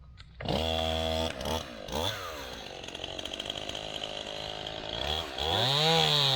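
Chainsaw engine comes on suddenly about half a second in at high revs, drops back with two quick throttle blips, and runs lower for a few seconds. It then revs up a second or so before the end and holds a steady high speed.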